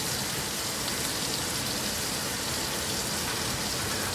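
Venison tenderloin sizzling steadily in hot butter in a pan.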